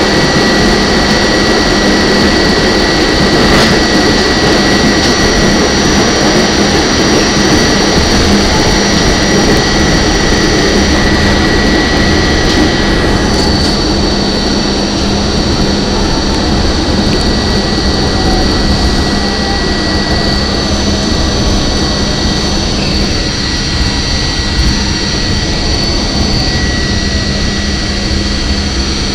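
R44 subway car running along the line, heard from inside the car: a steady loud rumble of wheels on rail with a high-pitched whine held on a few steady notes. It eases a little in the last several seconds as the train slows into a station.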